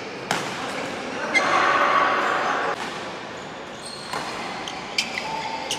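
Badminton rackets striking a shuttlecock during a rally, with sharp pops echoing in a large hall: one shortly after the start and two near the end. A louder burst of noise lasting about a second comes about a second and a half in.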